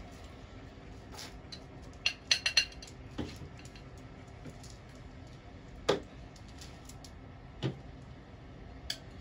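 Glass bowl, spoon and spice jars clinking and knocking on a table: a quick run of four sharp, ringing clinks about two seconds in, then single knocks every second or two.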